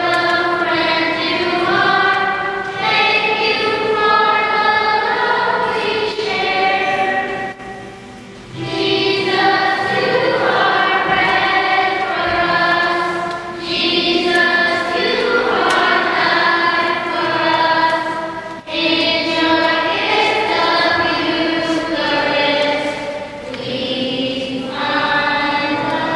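Choir singing a hymn in long sung phrases, with a brief break between them.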